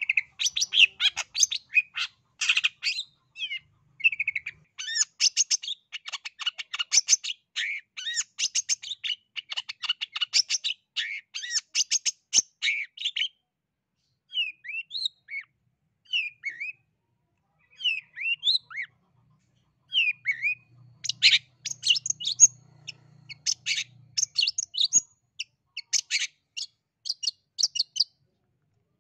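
East Java long-tailed shrike (cendet) singing in full voice: long runs of rapid, high chattering notes, a stretch of separate short sliding whistles about halfway through, then dense chattering runs again.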